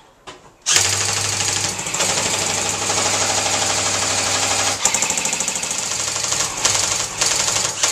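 Airsoft gun firing full-auto at close range: a loud, fast mechanical rattle sustained over several seconds, with a brief break about five seconds in.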